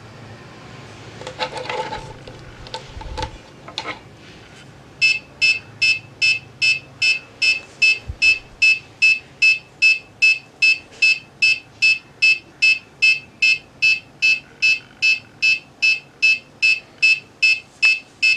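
A few soft clicks and rustles as the 9 V battery's barrel plug is pushed into an Arduino Uno. About five seconds in, the board's piezo buzzer starts beeping: a short, high, steady-pitched beep repeated evenly, about three times a second, in step with the flashing LED.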